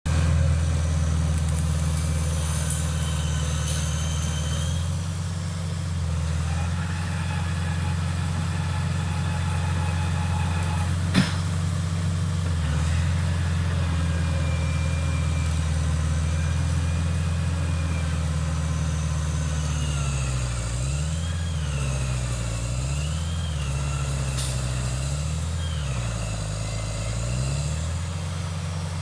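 Bulldozer's diesel engine running steadily, its pitch dipping and recovering several times over the last third as it takes load. A single sharp clank comes about a third of the way in, with brief high squeals near the end.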